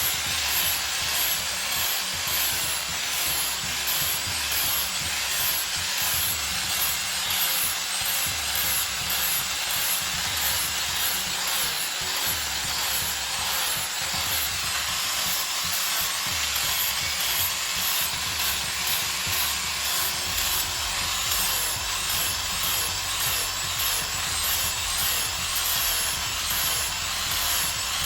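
Power sander running steadily against the wood of a large tree root, a continuous rough hiss of abrasive on wood.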